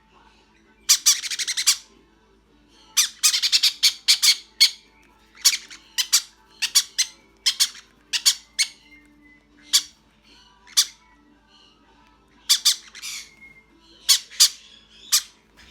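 Baby pineapple conure chicks squawking in short, harsh calls, some with a fast rasping pulse, repeated every second or so: the food-begging calls of hand-fed chicks at feeding time.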